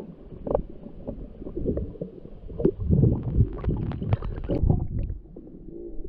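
Muffled underwater sound heard through a waterproof camera housing: a low rumbling and gurgling from water moving around the camera, with scattered clicks and knocks. These are busiest in the middle, as a diver moves close to the camera.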